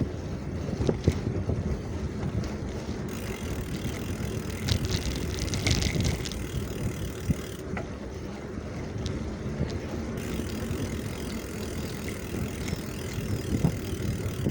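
Wind buffeting the microphone over the rumble of a bicycle being ridden, with scattered small clicks and rattles and a stretch of brighter hiss about five seconds in.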